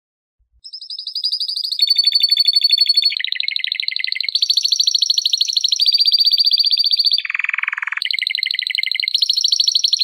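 Domestic canary singing, starting about half a second in: a long song of rapid trills that switch pitch and speed about every second, with a lower rolling trill late in the song.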